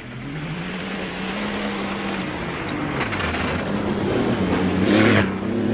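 MINI rally car's engine running hard on a gravel track, its pitch rising and falling with the throttle and growing louder as the car approaches, loudest about five seconds in as it passes, with gravel and tyre noise underneath.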